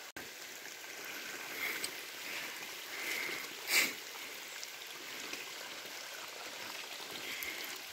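Steady hiss of rain and running water on a muddy dirt road, with a brief louder burst of noise near the middle.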